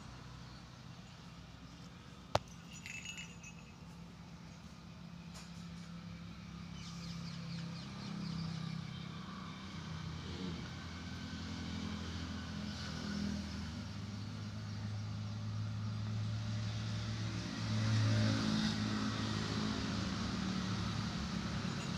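A low, steady engine hum that grows gradually louder, with a single sharp click a couple of seconds in.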